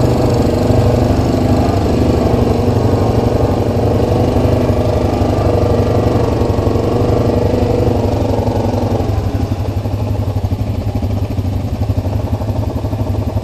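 Four-wheeler ATV engine idling steadily, with a second engine sound mixed in that drops away about nine seconds in, leaving the low idle.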